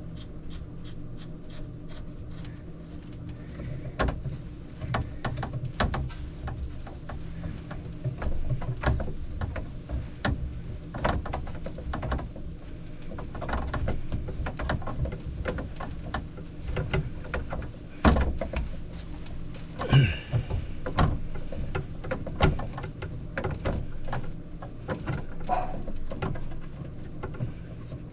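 Irregular clicks and knocks of hands-on plumbing work, tools and pipe fittings being handled and worked on a CPVC supply line, with a few sharper knocks about two-thirds of the way through, over a steady low hum.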